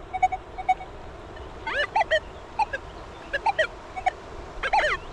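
A metal detector gives rapid short electronic beeps for about the first second. From under two seconds in comes a run of short, arching animal calls, each rising and falling in pitch, in clusters.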